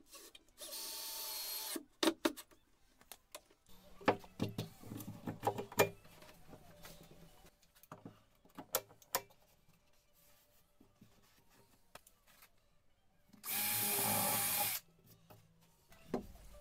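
Cordless drill-driver driving screws into wood, running in two short steady bursts, about a second in and again near the end. Between them come sharp clicks and knocks of tools being handled.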